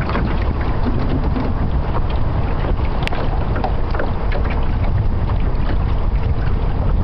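Steady wind rumbling across the camera microphone aboard a sailboat, with small crackles and one sharp click about three seconds in.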